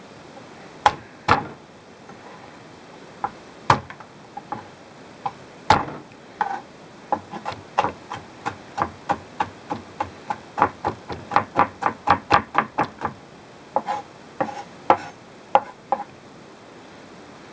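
Chef's knife chopping garlic cloves on a wooden cutting board: a few separate knocks at first, then a fast run of chops, about four a second, in the middle, thinning to scattered knocks near the end.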